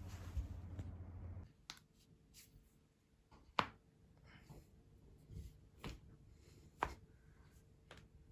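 Human joints being cracked: a series of sharp single pops and clicks, two of them much louder than the rest, one a little before halfway and one near the end. A steady low hum runs underneath and stops about a second and a half in.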